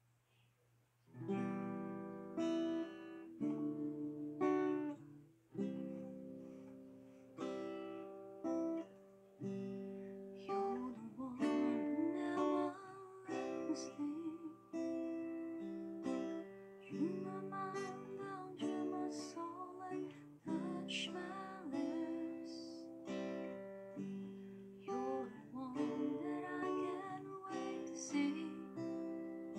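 Acoustic guitar strummed in chords that are let ring, beginning about a second in after a short silence.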